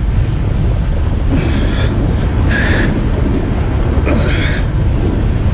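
Roaring flames: a steady deep rumble with three brief, brighter rushing surges, roughly one every second or so.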